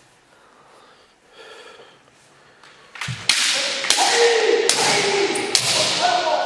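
Kendo exchange: bamboo shinai striking with about five sharp cracks, starting about halfway through, under the fencers' long, loud kiai shouts.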